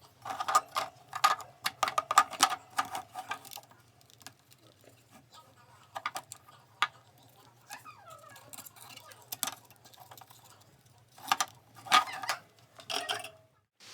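Small hard objects being handled, clicking and rattling: a dense run of quick clicks at the start, a few scattered single clicks in the middle, and another cluster near the end.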